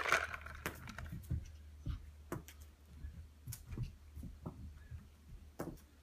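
A Bengal cat's paws pouncing and scrabbling on carpet while chasing a feather wand toy, heard as an irregular scatter of soft taps and knocks. A brief rustle right at the start is the loudest moment.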